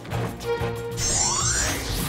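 Cartoon superhero transformation music: an orchestral score joined by a sparkling shimmer and a rising whoosh sound effect about a second in.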